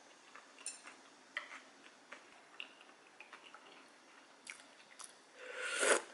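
Quiet eating sounds: scattered soft clicks of chewing and chopsticks. Near the end a louder rushing sound swells for about half a second and stops suddenly.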